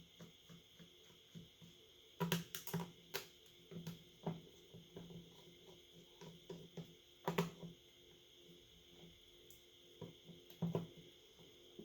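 Scattered small clicks and taps of repair tools and parts against a smartphone during disassembly. The louder clicks come in clusters about two seconds in, around seven seconds in, and near the end.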